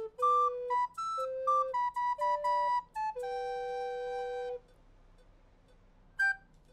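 Short outro tune played on recorders in two parts: a quick run of clean, tongued notes that ends on a long held chord about four and a half seconds in. A single brief note sounds near the end.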